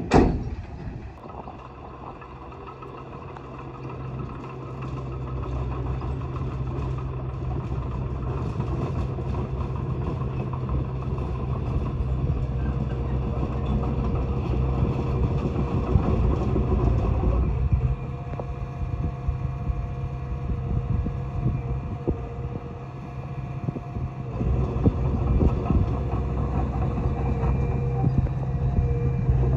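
A heavy diesel engine of earthmoving equipment running under varying load. It grows louder over the first several seconds, drops back briefly past the middle, then picks up again. A sharp click right at the start.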